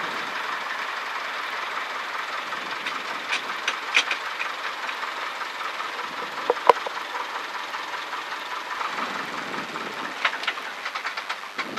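Steady hiss with scattered small clicks and ticks, a sharper tick about four seconds in and another between six and seven seconds; no engine note can be heard.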